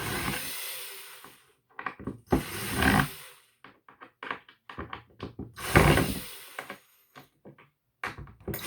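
Impact driver whirring and hammering on hinge screws in three bursts of about a second each, with small clicks and knocks between them: the wrongly mounted cabinet hinges are being taken off.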